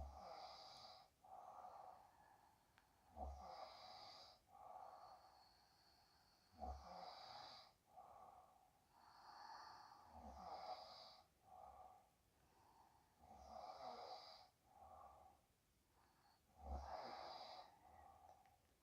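A sleeping woman's faint, slow snoring breaths, each with air blown out through the mouth, about one every three and a half seconds.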